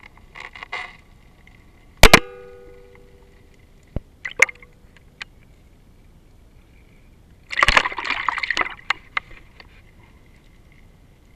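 Underwater speargun and gear noise: a loud metallic clack with a short ringing about two seconds in, several lighter clicks and knocks, and about a second of bubbly crackling from about seven and a half seconds in.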